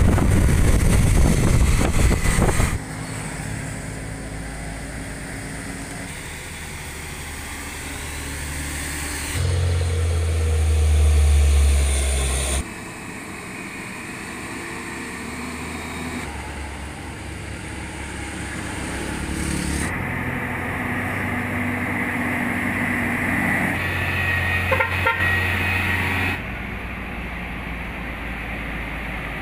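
Heavy diesel trucks climbing a steep road, their engines running under load, in a string of short clips that cut abruptly every few seconds. It is loudest at the start, where a truck's dual rear wheels roll past close by, and there is a deep, steady engine hum about ten seconds in.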